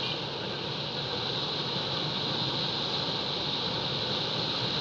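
Motorcycle cruising at a steady speed of about 58 km/h: a steady rush of wind and road noise over the action camera's microphone, with the engine running low underneath.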